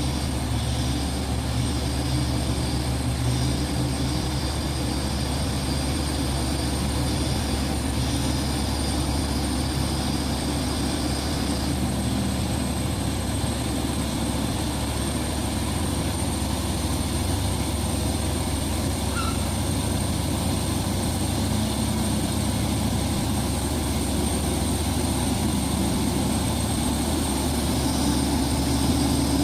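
Heavy diesel engine running steadily in a continuous drone with a thin high whine above it, getting a little louder near the end.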